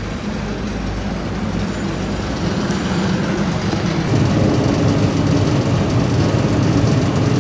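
A motor vehicle's engine running close by, a steady low rumble that grows gradually louder and steps up about four seconds in.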